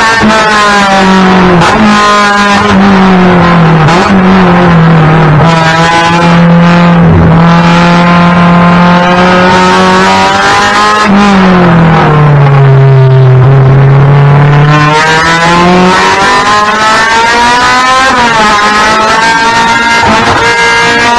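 Race car engine heard from inside the cockpit, its pitch repeatedly climbing under acceleration and dropping at each gear change. About halfway through the pitch falls and stays low for a few seconds as the car slows, then climbs again.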